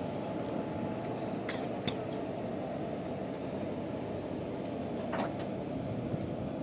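Steady running noise of a standing electric locomotive, with a few sharp metallic clinks as a worker handles the coupler and brake hose connections between locomotive and coach, two of them about two seconds in and one near the end.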